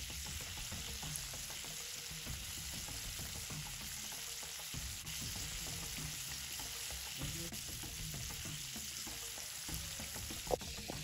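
Curry-seasoned chicken pieces deep-frying in hot oil in a frying pan, a steady sizzle with small pops and one louder pop near the end.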